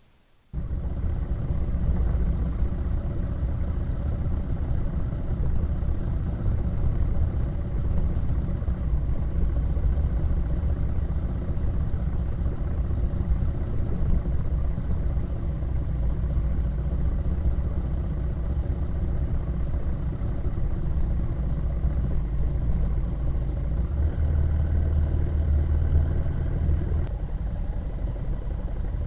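Vehicle engine running steadily with a low rumble, cutting in abruptly about half a second in and swelling slightly near the end.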